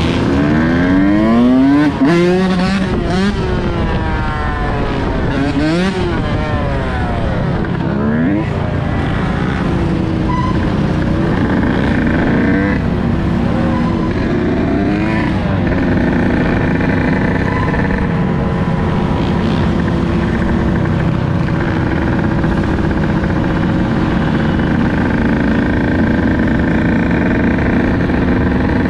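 Dirt bike engine revving up and down several times in the first nine seconds as the rider works the throttle and gears, then running at a steadier pitch while cruising, with other dirt bikes and ATVs riding in the group.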